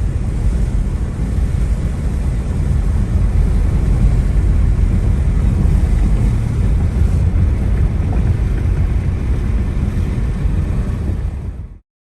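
Wind buffeting the microphone in a loud, steady rumble, heaviest in the low end. It cuts off suddenly near the end.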